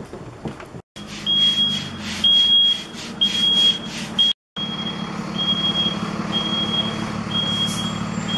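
A vehicle's reversing alarm beeping, one high beep about once a second, over the steady low running of its engine. The sound drops out briefly twice.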